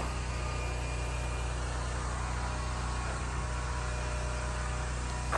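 A car moving slowly along a road: a steady low engine hum under even road noise.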